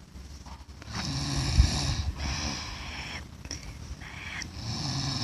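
A sleeping man snoring with his mouth open, several snores about a second long in close succession.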